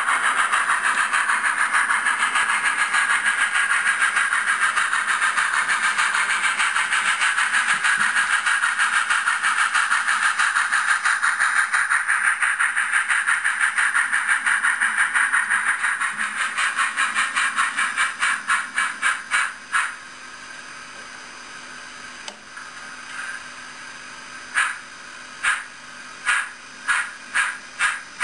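Model narrow-gauge steam locomotive, a D&RGW No. 462 in H0n3, running with steady rhythmic steam chuffs and hiss. The chuffs fade to a faint hiss past the middle, then come back sharper and quickening near the end.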